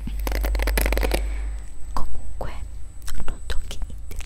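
Hairbrush bristles scratched rapidly close to the microphone: a dense run of scratchy strokes for about the first second and a half, then sparser, softer scratches.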